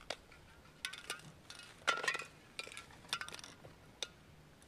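Metal spray paint cans clinking against one another in several short clusters as they are carried and set down. The loudest clatter comes a little before the middle.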